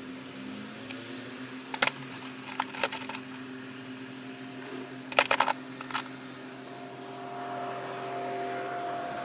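Light metallic clicks and clinks, a few spread out and a quick cluster of them about five seconds in, over a steady hum with several held tones that gets a little louder near the end.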